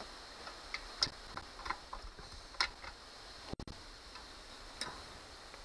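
Light, irregular clicks and taps of a hand tool and plastic mower parts being handled while the gas tank is worked off a lawnmower engine, over a faint steady hiss.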